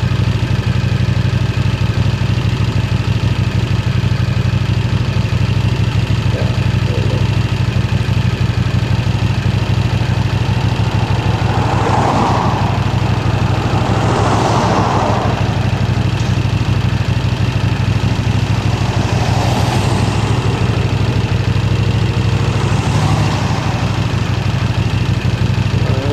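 Motorcycle engine running at a steady, unchanging speed. A few brief rushes of noise come through around the middle and again near the end.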